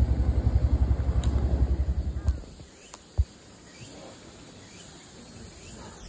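An engine running with a rapid low throb, about fourteen pulses a second, cutting off abruptly about two seconds in. A single sharp knock follows about a second later over a quieter background.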